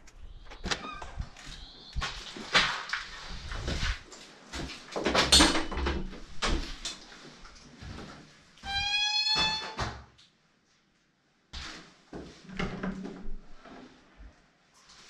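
Doors being unlocked and opened by hand: handle and latch clicks and knocks of the doors, with one long squeak, rising slightly in pitch, a little under ten seconds in.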